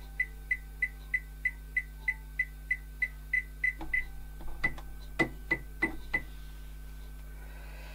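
Computerised sewing machine beeping as its control buttons are pressed: a run of short high-pitched beeps about three a second, then a few more beeps with button clicks, stopping after about six seconds.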